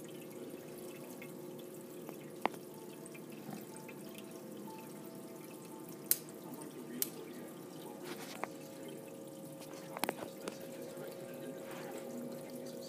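Reef aquarium with a sump: water trickling and dripping steadily over a constant pump hum, with a few sharp ticks scattered through.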